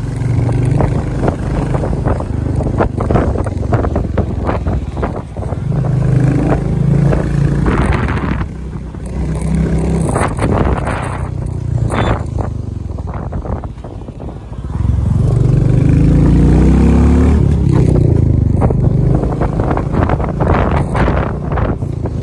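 Royal Enfield Bullet motorcycle's single-cylinder engine running under way, with wind buffeting the microphone. About fifteen seconds in, the engine gets louder and rises in pitch for a few seconds as it revs up.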